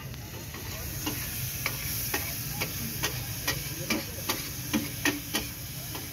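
Metal spatula chopping and scraping green chilies on a large flat griddle, a rhythmic clack about twice a second, over a faint sizzle of frying.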